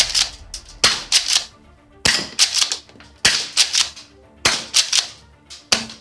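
Golden Eagle M870 mini airsoft pump-action shotgun fired again and again: sharp pops mixed with the clacks of the pump being worked, coming in quick clusters roughly every second and a bit.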